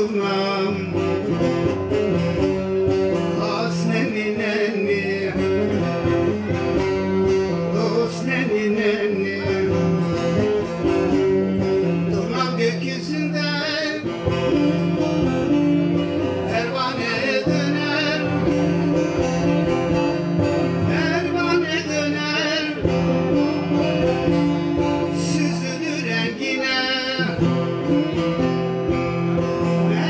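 Bağlama (Turkish long-necked lute) played continuously, with a man's voice singing over it, amplified through a microphone and loudspeaker.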